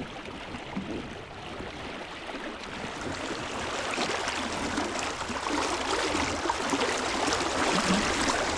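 River water running and splashing, growing louder about midway through.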